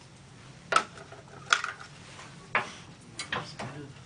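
About six short, sharp clicks and knocks of tools being handled at a wood lathe, spaced irregularly, over a faint low steady hum.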